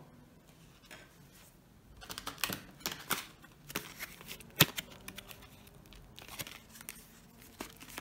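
Plastic retail packaging of a RAM kit being handled and opened: scattered crinkles and clicks, the sharpest about halfway through.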